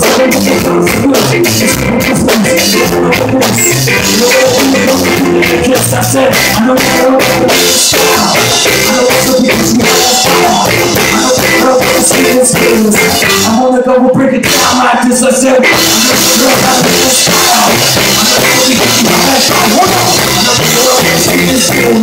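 Live rock band playing loud: electric guitar, drum kit and a lead singer. The band briefly drops back about two-thirds of the way through, then comes in full again.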